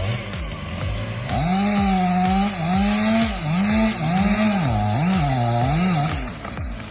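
Two-stroke chainsaw engine revving, its pitch climbing about a second in and then rising and falling five or six times as the throttle is worked.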